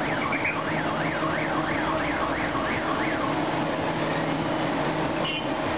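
Electronic siren sweeping up and down in pitch about twice a second, stopping about three seconds in, over a steady hum of street traffic.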